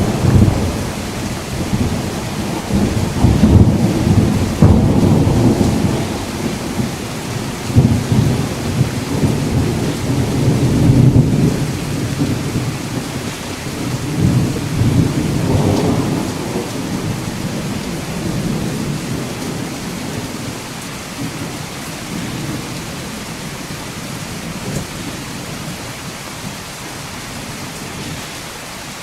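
Steady rain with rolling thunder. The deep rumbles swell and fall repeatedly through the first half, then die away, leaving mostly the hiss of rain near the end.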